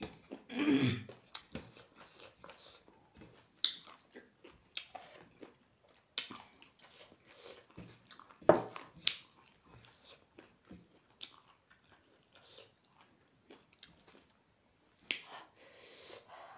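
Close-up mouth sounds of a person eating rice with fried pork by hand: chewing with irregular wet smacks and clicks. One sharp smack about eight and a half seconds in is the loudest.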